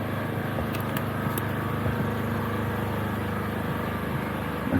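Steady engine hum with a few faint high ticks about a second in.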